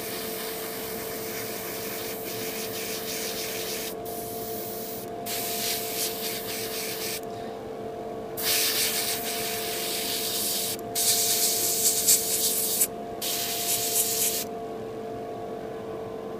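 Airbrush spraying a light mist coat of thinned red paint: the air-and-paint hiss comes in about six bursts of one to four seconds as the trigger is worked, and stops shortly before the end. A steady hum runs underneath.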